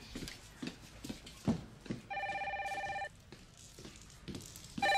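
Telephone ringing in repeated electronic trills about a second long: one full ring about two seconds in, and the next starting near the end. Soft knocks can be heard between the rings.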